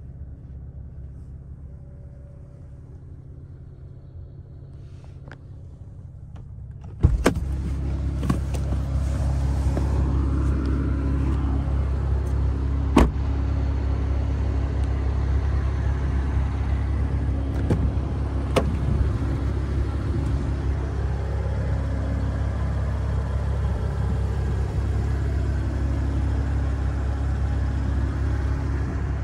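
Cadillac CT4-V's engine starting about seven seconds in with a sudden loud burst, then running steadily with a strong low rumble. A few sharp clicks sound over it.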